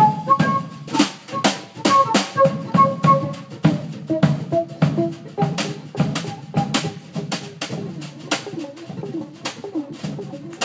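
Live jazz: a flute playing held melody notes over a drum kit with frequent cymbal and drum hits and an upright bass underneath.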